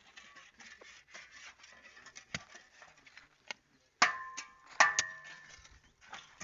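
Metal tools clanking on a construction site: faint scraping and clicking, then two sharp ringing metallic strikes about four and five seconds in.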